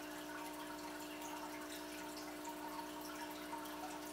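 Faint aquarium running: a steady low hum, likely from the filter or air pump, with water trickling and dripping into the tank.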